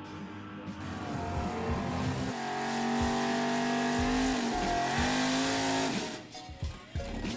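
Drag car doing a burnout: the engine is held at high revs while the rear tyres spin and squeal. The revs dip briefly a couple of times, and the engine lets off about six seconds in.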